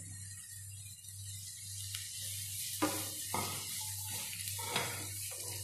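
Onion, green chillies, garlic and ginger sizzling in hot coconut oil in a frying pan; from about three seconds in, a spatula stirs them, scraping the pan several times.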